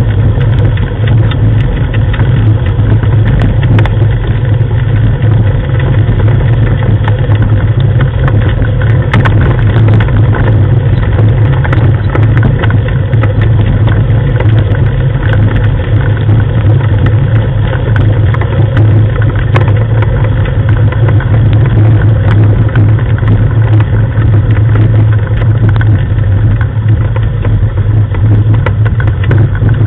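A vehicle engine running at a steady low speed, with a loud, constant drone. Scattered clicks and rattles come from the rig rolling over the gravel track.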